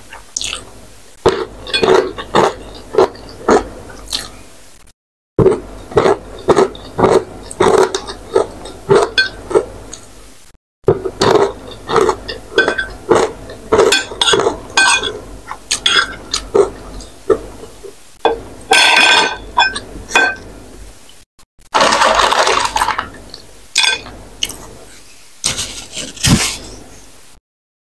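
Close-miked chewing and mouth smacking of a person eating spicy instant ramen noodles, about two wet smacks a second, with a couple of longer slurping sounds past the middle and a metal spoon and fork clinking on a ceramic plate. The chewing is broken by a few abrupt cuts to silence.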